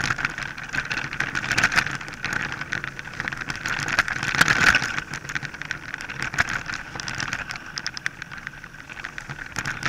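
Mountain bike riding over a leaf-covered forest trail: a steady rush of tyre and wind noise, with many quick rattling clicks and knocks from the bike over the bumps.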